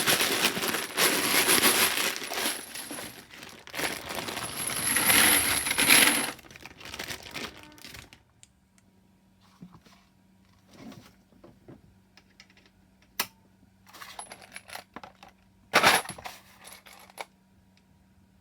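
Spent 9mm brass cases clinking and rattling together, a dense continuous clatter for about six seconds that dies away, followed by scattered single clinks and a couple of sharper knocks.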